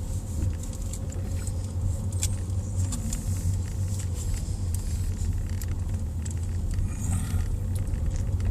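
Car cruising slowly, heard from inside the cabin: a steady low rumble of engine and tyres, with scattered light clicks and rattles.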